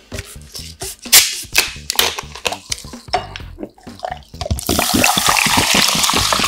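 Sharp clinks and knocks of ice and a glass mug being handled, then, about four and a half seconds in, a fizzy drink poured from a plastic bottle over ice with a steady loud fizzing hiss.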